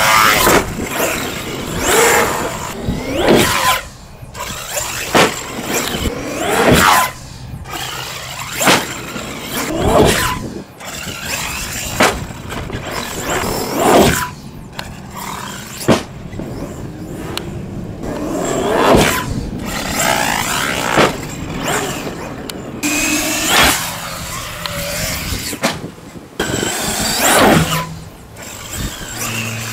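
Traxxas X-Maxx electric RC monster truck's brushless motor whining, its pitch sweeping up and down again and again as it accelerates hard off ramps, jumps and comes back down, with occasional sharp knocks of landings.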